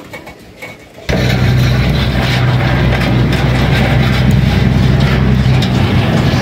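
A few faint clicks, then about a second in a motor or engine starts up abruptly and runs with a steady, loud, low drone.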